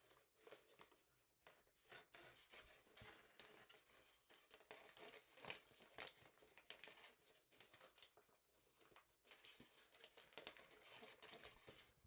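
Faint, irregular crinkling and crackling of a sheet of origami paper being folded and creased by hand.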